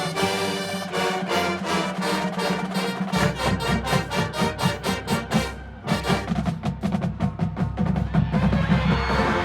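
A university marching band playing a medley of classical themes, with fast, even percussion strokes. A deep low bass part comes in about three seconds in, and the band drops away for a moment just before the six-second mark.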